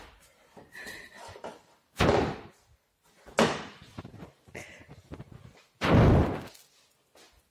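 Curved wooden rocker board of a Good Wood play set being turned over and set down on a wooden floor: heavy wooden thuds about two seconds in, a second and a half later, and the loudest near the end, with lighter knocks between them.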